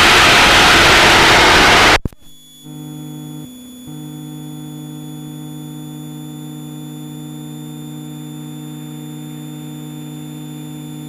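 Loud steady cockpit noise of the Extra EA-200's engine and airflow, which cuts off abruptly about two seconds in. The rest is a steady electrical hum made of several fixed tones, with no engine sound.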